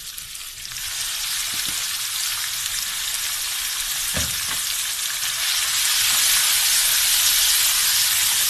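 Raw chicken pieces sizzling in hot oil in a karahi, the hiss swelling about a second in and louder again about six seconds in as the pieces are stirred, with a single knock about four seconds in.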